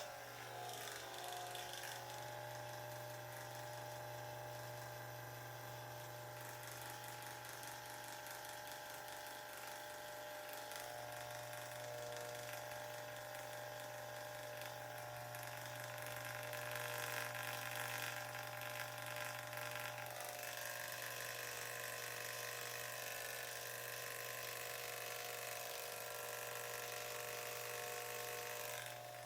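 Electric hair clippers running with a steady buzz, switched on at the start and off near the end, the tone shifting slightly about two-thirds of the way through.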